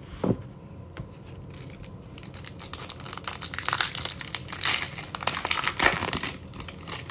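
A short knock, then the shiny wrapper of an Upper Deck hockey card pack crinkling as it is handled and opened, a dense crackle from about two seconds in until near the end.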